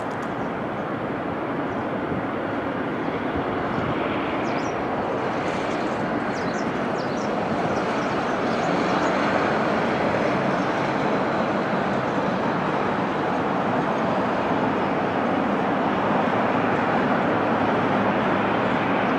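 Airbus A380 on final approach, its four jet engines a steady rush that grows slowly louder as the aircraft comes nearer.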